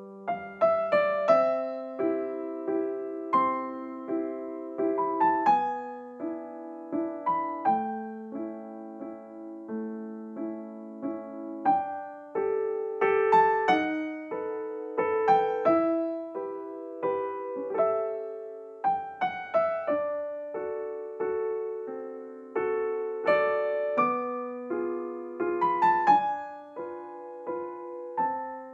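Background music: a gentle piano melody with chords, notes struck and left to ring.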